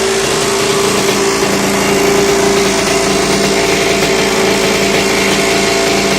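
Kawasaki KX 125's single-cylinder two-stroke engine idling steadily, being warmed up before an oil change.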